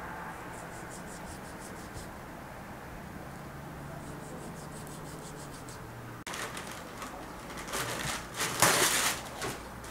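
A chef's knife slicing raw beef on a wooden board, faint. About six seconds in it gives way abruptly to a kitchen tap running and splashing as a whole raw chicken is rinsed under it over a steel sink, the loudest part.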